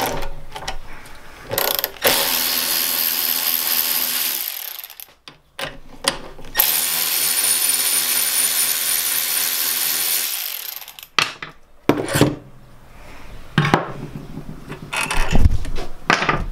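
Electric ratchet running in two steady bursts of a few seconds each, the second one longer, backing out engine bolts, with clicks and knocks of tools and parts around them.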